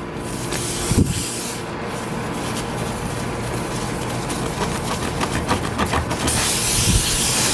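Air hissing out of a nail puncture in a truck tyre while a plug-kit reamer is twisted in the hole, with rubbing and a couple of low knocks. The hiss grows louder and brighter near the end.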